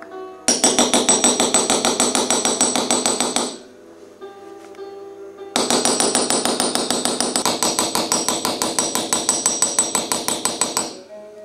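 A small hammer tapping a steel chasing punch on copper sheet, working the relief in two long runs of quick, even strikes. Quiet acoustic guitar music plays underneath.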